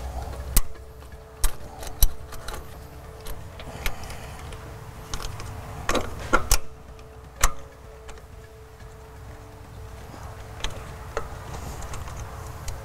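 Scattered metallic clicks and clinks of a steel band clamp being worked by hand onto a turbocharger's outlet elbow, a fiddly clamp that is hard to get caught; a faint steady hum runs underneath.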